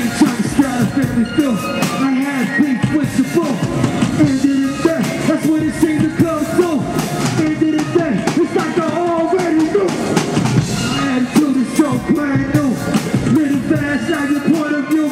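Live hip hop music: a drum-driven beat with a voice carrying a wavering melodic line over it.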